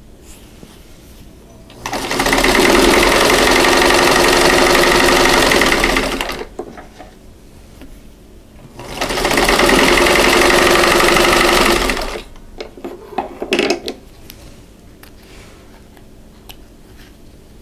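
1952 Singer 15-91 sewing machine stitching a seam through two fabric squares, in two runs of about four seconds each with a short pause between, followed by a few light clicks.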